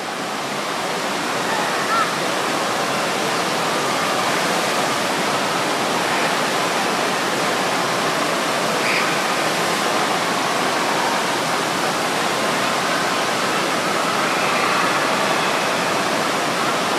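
Steady rushing of water from a sheet-wave surf simulator: a thin sheet of water pumped at speed up and over a padded ramp.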